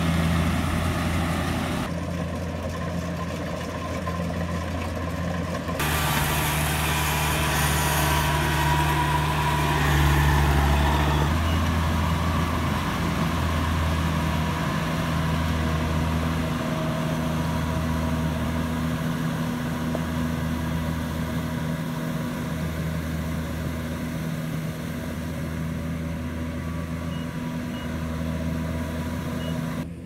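Kubota DC-70 rice combine harvester running under load, its diesel engine and threshing machinery giving a loud, steady drone. The sound shifts abruptly a few times, and a low throb swells and fades every couple of seconds later on.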